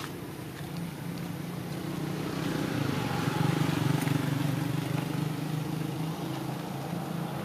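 A passing motorbike's engine: a steady hum that swells to its loudest about three to four seconds in, then slowly fades.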